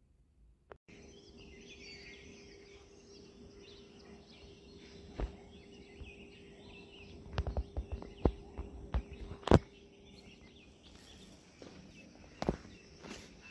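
Outdoor ambience with birds chirping over a steady background hiss and a faint low hum, broken by a run of sharp knocks and clicks in the middle, the loudest about two-thirds of the way in.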